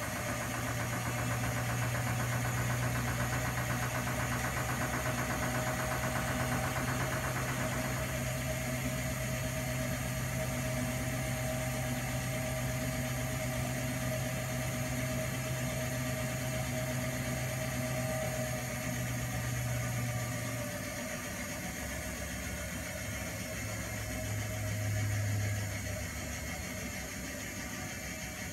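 Primus P6 commercial front-loading washing machine running a 95 °C boil wash, with a steady low motor hum. The hum stops about two-thirds of the way in and returns briefly near the end.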